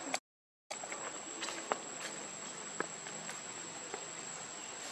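Steady high-pitched insect drone over outdoor hiss, with a few short clicks; the sound cuts out for about half a second just after the start.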